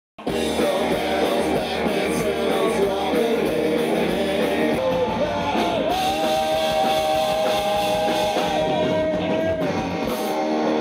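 Rock song with guitar and a singer, starting abruptly out of silence. A sung note is held for a couple of seconds a little past the middle.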